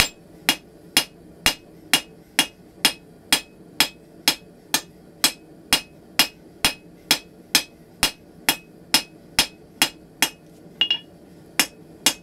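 A blacksmith's hand hammer striking red-hot steel bar stock on an anvil, sharp ringing blows in a steady rhythm of about two a second. Near the end there is a brief break and a quick double tap before the blows resume.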